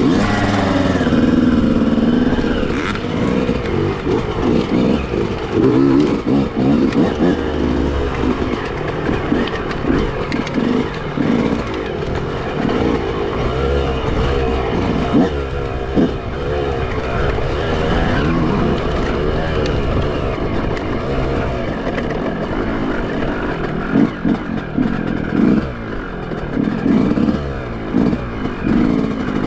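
Enduro dirt bike engine being ridden down a steep slope, its revs rising and falling unevenly as the throttle is opened and closed, with occasional knocks from the bike over rough ground.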